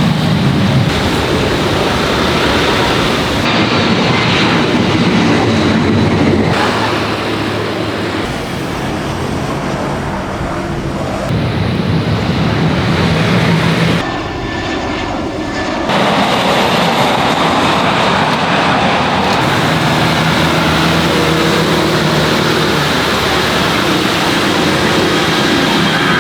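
Jet airliner, an Airbus A330-300, running its engines loud and steady as it comes in to land, with the sound changing abruptly several times where the recording is cut.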